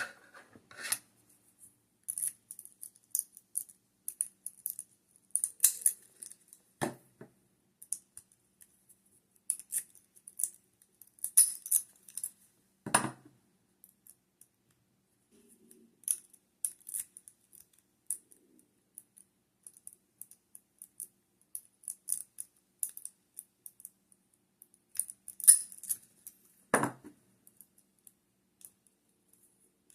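Metal lock picks raking and scraping in a lock under a tension wrench: rapid thin metallic scratching and light clicking, with a few louder clacks about 7, 13 and 27 seconds in.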